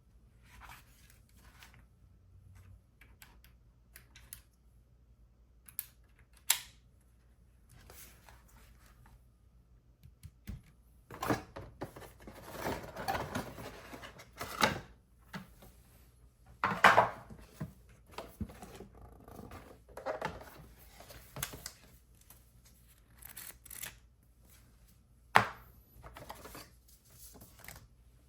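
Unboxing handling sounds: rustling and scraping of packaging, with scattered sharp clicks and knocks and a busier stretch of rustling near the middle.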